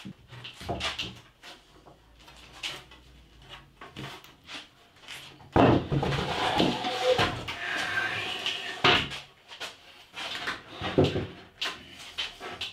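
A heavy beech workbench top being handled and set onto a wooden base frame, making scattered wooden knocks and bumps. There is a loud thud about five and a half seconds in, followed by a few seconds of rubbing and scraping as the board is shifted, then a few more knocks near the end.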